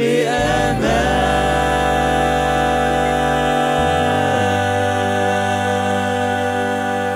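Mixed four-voice vocal group with keyboard and bass, holding the long final chord of a worship song on the word "bi-aman". The voices slide into the note at the start and then hold it steady. The bass note changes about four seconds in, and the chord begins to fade at the very end.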